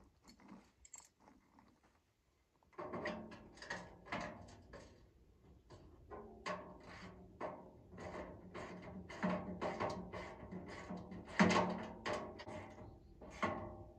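Background music with plucked, percussive notes, coming in about three seconds in after a few faint knocks.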